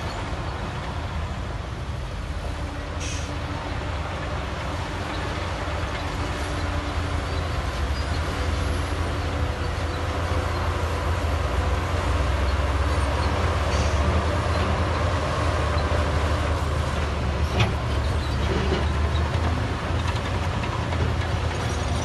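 Shantui crawler bulldozer's diesel engine running steadily, growing louder through the middle as the dozer pushes a pile of dirt with its blade. A single sharp knock comes about three-quarters of the way through.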